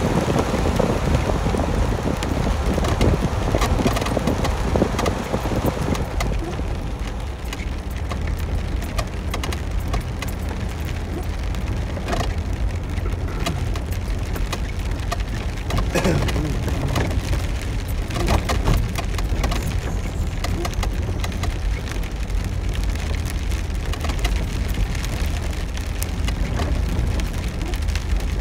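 Rain pattering on a vehicle's roof and windshield, heard from inside the cab, over the steady low rumble of the engine and tyres moving slowly along a wet dirt track.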